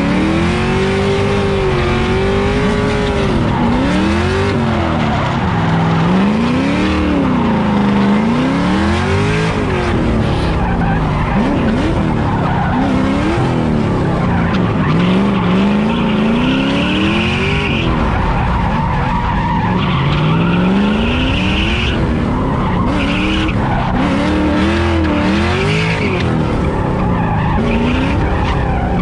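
Drift car engine heard on board, revving up and falling back over and over, every two to three seconds, as the car slides through the course. Tyres squeal and scrub under it, most plainly about two-thirds of the way through.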